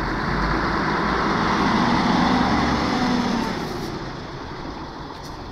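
Scania F113 city bus driving past close by, its front-mounted 11-litre six-cylinder diesel running under way, growing louder to a peak about two seconds in and then easing off as it goes by.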